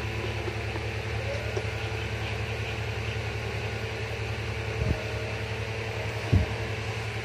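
Steady low hum with an even hiss, like a small motor or fan running, broken by two brief low thumps near the end.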